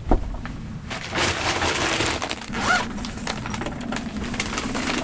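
A knock just after the start, then a plastic tote bag rustling and crinkling for several seconds as it is handled and lifted out of a wooden storage locker.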